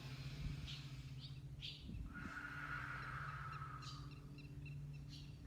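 Birds calling faintly outdoors: a few short high chirps in the first couple of seconds, then a longer hazy call lasting about two seconds, over a steady low hum.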